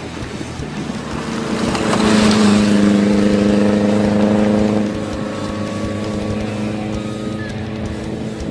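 Engine of a tube-frame rally buggy running hard as it passes close by, with a steady note that swells to its loudest between about two and five seconds in, then drops off.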